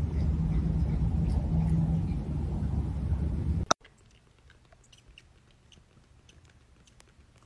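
A steady low rumble for nearly four seconds cuts off abruptly. It is followed by faint, scattered soft clicks of a kitten suckling and chewing at a small feeding bottle.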